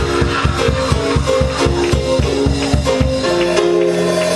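Church band playing a fast praise-break groove, with a quick, driving drum and bass beat. The beat stops about three seconds in, leaving a held chord.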